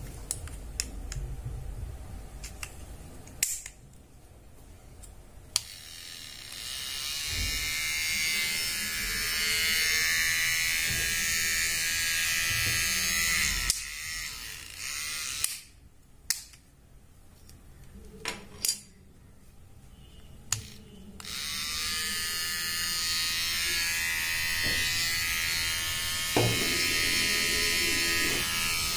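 HTC AT-522 rechargeable hair trimmer's motor and blades buzzing steadily. It is switched on a few seconds in, off around the middle, and on again for the last third. Sharp clicks and taps of handling come before the first run and between the two runs.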